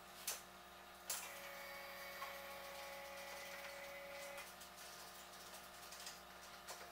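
A few faint clicks, then a small electric motor whining steadily for about three seconds before it stops suddenly.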